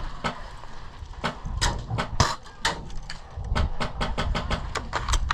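A run of sharp, irregularly spaced clicks and cracks, bunched most closely near the end, over a steady low rumble.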